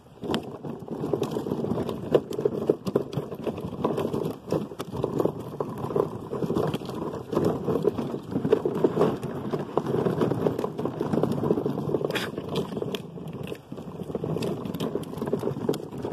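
Hard plastic wheels of a toddler's push-along ride-on car rolling over rough concrete: a continuous rattling crackle that cuts off suddenly near the end.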